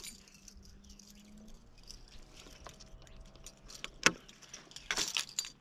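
Small clicks and rattles from a large baitcasting reel (a Shimano Tranx 400) and rod being handled, with a couple of sharper metallic clicks about four and five seconds in.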